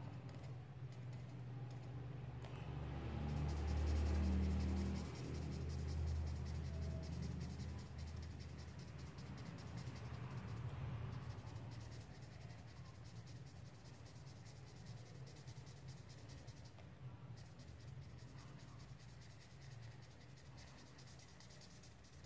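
Felt-tip marker scribbling on paper in rapid, scratchy back-and-forth strokes as the cartoon eyes are shaded in black, over a low hum that is strongest in the first few seconds.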